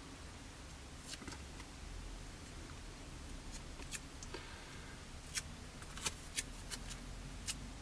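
Faint small clicks and crinkles of fingers handling pieces of Tamiya masking tape and a small clear plastic windscreen part, with a brief soft hiss a little after four seconds and a run of sharper clicks near the end.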